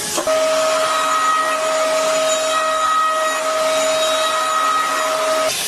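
Electric motor of a machine tool running at constant speed: a steady whine at several fixed pitches over a broad hiss, stopping abruptly near the end.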